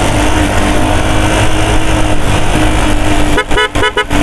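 Wind rushing over the microphone and a motorcycle engine running steadily while riding through traffic. Near the end there are a few short vehicle horn beeps.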